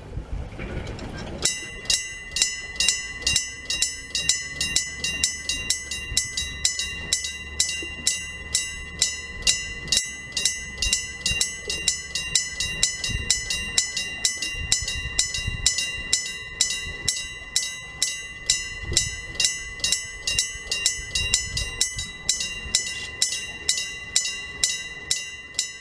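Railway level-crossing electric warning bell ringing with even strikes about twice a second, each leaving a ringing tone. It starts about a second and a half in and stops near the end, with a low rumble underneath at times.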